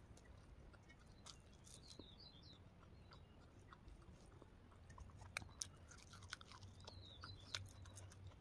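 Faint sounds of someone eating rice and fried pork by hand: quiet chewing and small clicks of fingers against a metal plate, a few sharper clicks near the end. A bird chirps faintly twice in the background.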